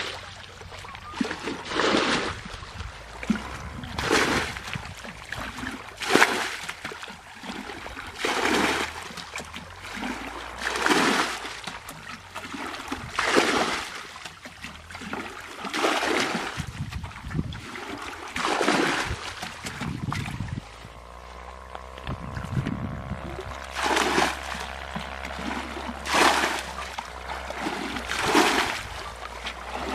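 Water splashing in a steady rhythm, one splash about every two to two and a half seconds, with a pause of a few seconds past the middle. A low steady hum runs underneath.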